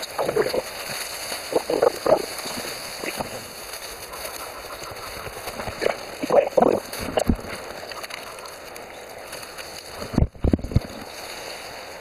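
Outdoor ambience: a steady hiss with scattered soft clatters, and wind buffeting the microphone about ten seconds in.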